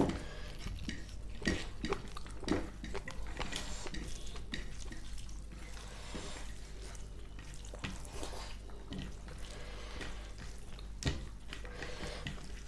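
Close-up eating sounds from a meal of rice and chicken curry: wet chewing and mouth sounds, with scattered light clicks of dishes. There is a sharper click right at the start and another near the end.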